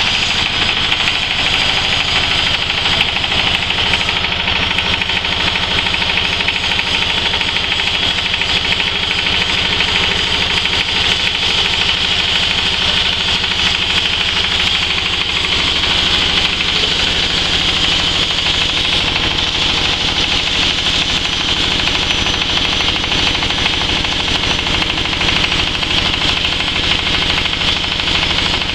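Stainless steel hammer mill with cyclone running under load, driven by a small stationary engine, grinding material fed into its hopper: a loud, steady, rapid mechanical clatter with a rushing hiss from the mill and cyclone.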